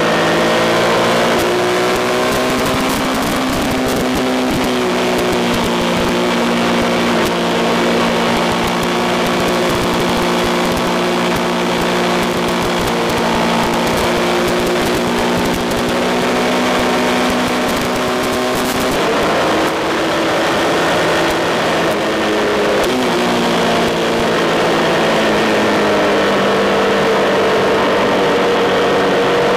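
Triumph Tiger 1200's three-cylinder engine running hard at speed, with wind rushing over the microphone. The engine note holds fairly steady, drops about two-thirds of the way through with a short break, then climbs again toward the end.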